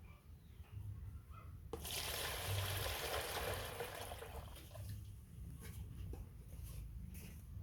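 Water running and splashing for about three seconds, starting abruptly a little under two seconds in, as bath water is poured.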